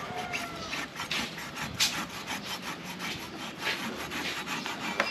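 Rusty machete blade shaving and scraping the green husk off the top of a coconut in repeated short strokes.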